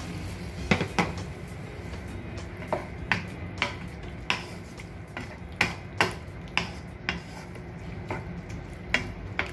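Wooden spatula stirring vegetables and sauce in a metal wok, knocking against the pan in sharp, irregular taps, one or two a second.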